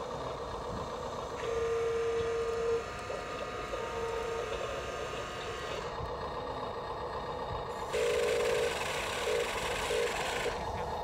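Huina RC dump truck's electric motors and gears whirring as the tipper bed lowers, with short electronic beeping tones. About eight seconds in, a louder, brighter whir comes in with pulsed beeps.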